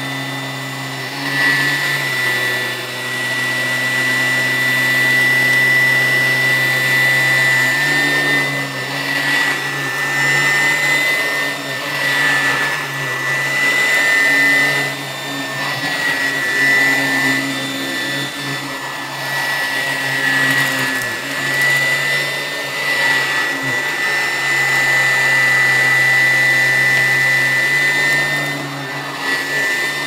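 Upright bagged vacuum cleaner running over carpet: a steady motor hum with a high whine, its loudness swelling and dipping gently as it is pushed back and forth.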